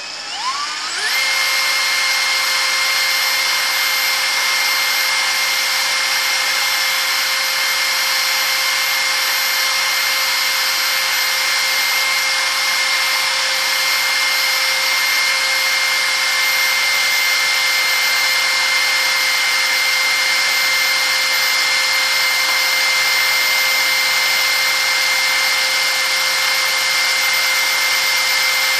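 Electric drill spinning up about a second in, then running at a steady speed, turning a Yamaha AX90 motorcycle clutch part. A hand file is held against the spinning metal, scraping over the drill's whine to true the surface.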